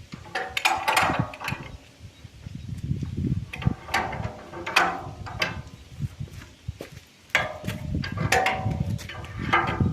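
Pipe wrench tightening a large nut on a steel bolt: metal clanks and scraping as the jaws are set and the nut is turned, in about three spells with short pauses between.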